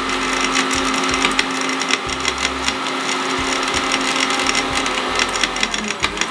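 Vidiem mixer grinder running at speed with whole dried turmeric in its small stainless-steel jar: a steady motor whine under a dense rattle of hard pieces hitting the blade and jar. Near the end the whine starts to fall in pitch as the motor is switched off and winds down.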